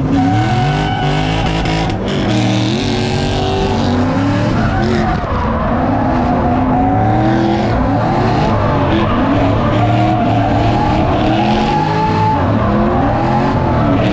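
Drift car engine running at high revs, its pitch rising and falling over and over, with tyres squealing through the slide.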